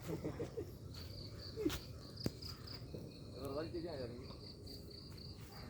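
Insect chirping: a high, evenly pulsed trill of about four pulses a second, starting about a second in, with faint voices now and then underneath.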